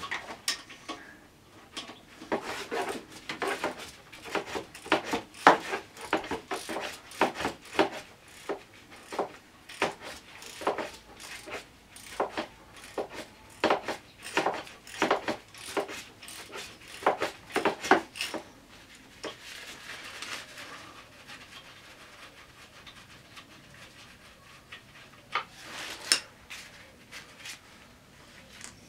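Hand tools working on an opened four-stroke scooter engine: a long run of irregular metal clicks, knocks and scrapes that thins out after about eighteen seconds, with a few louder knocks near the end.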